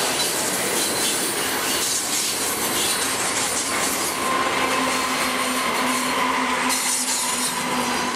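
Loaded hopper cars of a freight train rolling past on jointed track, wheels squealing and rail noise steady. About halfway through, a Norfolk Southern diesel locomotive coupled to the hoppers passes, and a steady engine hum joins the rolling noise alongside a higher squealing tone.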